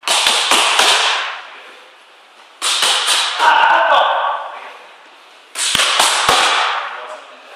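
Boxing gloves striking hand-held focus mitts in three quick combinations of three or four sharp slaps each, about three seconds apart, echoing in a large hall.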